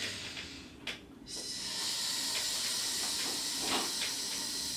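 A steady high hiss that comes in about a second and a half in and holds evenly.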